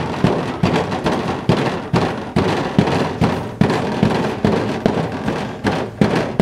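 Wooden pestle pounding in a wooden mortar, crushing pineapple with chili salt: steady thuds a little over two a second, over background music.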